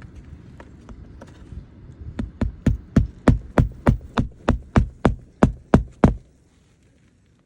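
A hammer striking repeatedly on a roof shingle repair: light taps, then about fifteen sharp blows at roughly three a second, growing louder at first, that stop suddenly.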